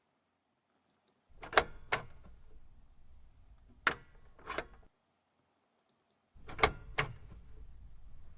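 Recorded handling effects of Cessna 208 airplane parts: sharp mechanical clicks over low handling noise. There are two clicks close together about a second and a half in and two more around four seconds. After a stretch of silence come another two clicks near the end.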